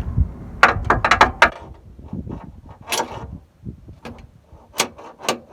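Metal tools and steel parts knocking and clinking together: a quick run of four or five sharp knocks about a second in, a single knock about three seconds in, and two more near the end.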